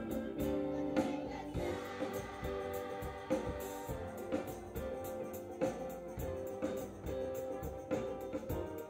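A large children's ensemble of flutes, brass and acoustic guitars playing a song together over a regular beat, with voices singing along.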